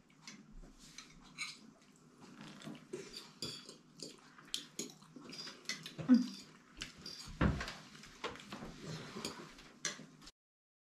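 Metal forks clinking and scraping on ceramic plates as two people eat, with two louder knocks about six and seven and a half seconds in. The sound cuts off suddenly near the end.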